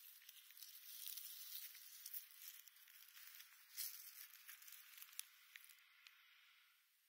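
Faint crackling and rustling with scattered soft clicks, a beaver foraging and nibbling among low leafy weeds; it dies away near the end.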